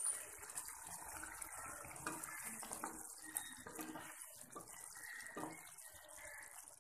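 Thick fish curry gravy bubbling faintly in a frying pan just off the heat, with small pops and a spatula moving through it.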